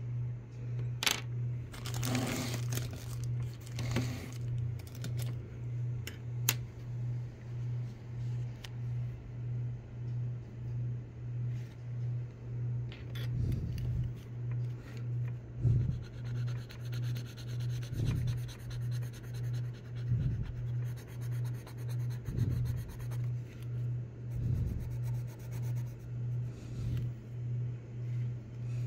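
Graphite pencil scratching and rubbing on paper in short strokes, over a loud low hum that swells and fades about one and a half times a second.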